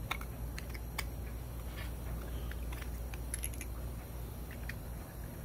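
Small metal parts clicking and clinking as a thin cutoff wheel and its mandrel screw and washer are picked up and handled on a steel table, a scatter of sharp ticks over a low steady hum.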